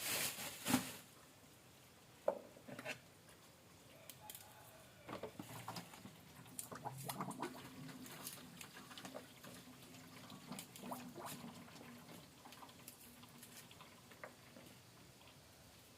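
Kitchen prep handling sounds: scattered light clicks, taps and rustles of ingredients, containers and utensils being moved, with a sharper knock near the start.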